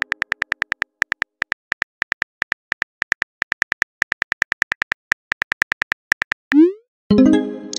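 Simulated phone keyboard clicks, a rapid run of taps several a second as a message is typed, then a short rising whoosh as the message is sent. Near the end comes a short pitched notification tone.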